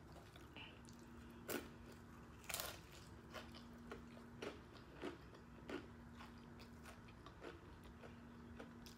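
Crunching bites into a crisp hard-shell taco: a loud crunch about a second and a half in, a louder double crunch about a second later, then a run of softer crunches about twice a second as it is chewed.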